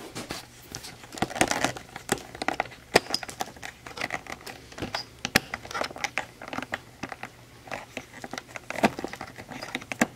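Irregular crinkling with many small clicks and taps, like plastic or other light material being handled close by.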